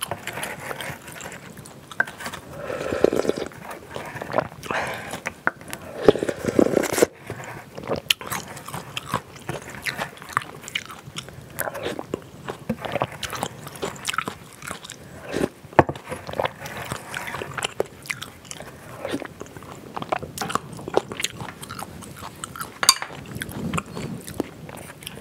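Close-miked eating sounds: a person chewing and slurping spicy instant ramen noodles and broth from a spoon and bowl, with many small clicks and a few louder slurps.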